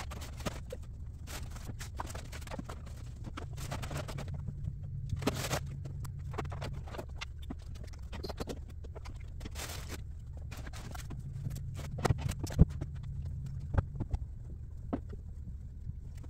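Plastic toys being picked up off the floor and dropped into a plastic carrier bag: irregular clattering knocks with a few bursts of bag rustling, over a steady low hum.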